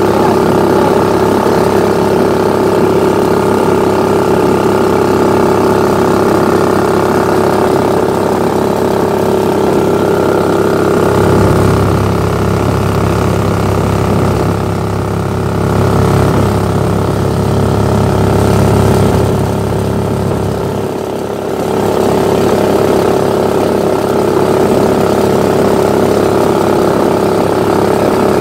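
Predator 420cc single-cylinder four-stroke engine on a Mud-Skipper surface-drive mud motor, running steadily at speed with the boat under way. Its low drone deepens from about 11 seconds in, dips briefly near 21 seconds, then settles back to its earlier sound.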